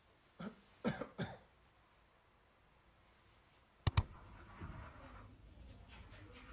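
Three short coughs in quick succession, then a few seconds later two sharp clicks close together, louder than the coughs.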